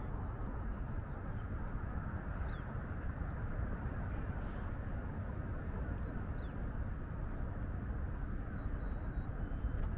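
Steady wind rumble on the microphone, fluttering low and even throughout, with a few faint high bird chirps now and then.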